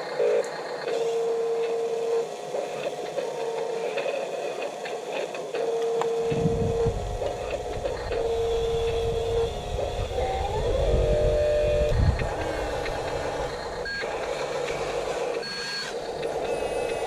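Electronic reversing-style beeping from a radio-controlled construction vehicle's sound module, a steady tone sounding in uneven beeps. Short rising tones come through in the middle, and a low rumble joins about six seconds in.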